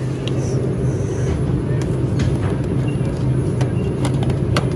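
Steady low hum of a refrigerated drink cooler with its door open, and a few light clicks and clinks near the end as an aluminium can is pulled from the shelf.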